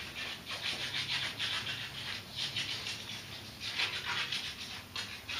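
Irregular scratchy rubbing, several short scrapes a second, from the camera shifting against the gondola window glass, over a steady low hum inside the ropeway cabin.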